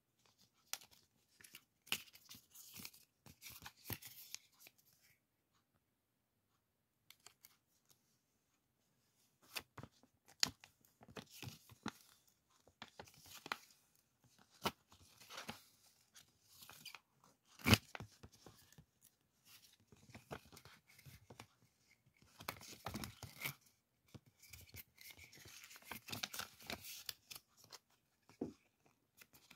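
Clear plastic sticker sheets and their cellophane packaging crinkling and rustling as they are handled, in irregular bursts. There is a lull of a few seconds near the start and one sharp click about two-thirds of the way through.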